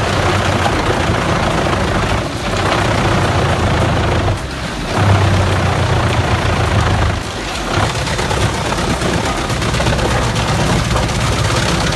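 Large wood chipper chewing through wood: a dense crackling, splintering clatter over a steady engine drone. The clatter eases briefly three times.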